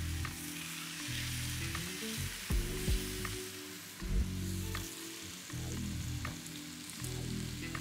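Two raw steaks sizzling steadily as they sear in a very hot pan, with a few light clicks of metal tongs.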